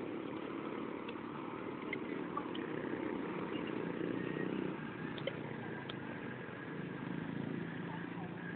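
Steady background rumble of road traffic, with a few faint ticks.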